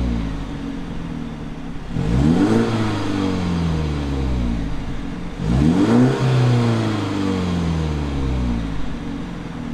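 2017 BMW 330i's 2.0-litre turbocharged inline-four, heard at the exhaust, being revved while standing still. Two quick blips come about two and five and a half seconds in. Each rises fast and then falls slowly back toward idle, after the falling tail of an earlier blip.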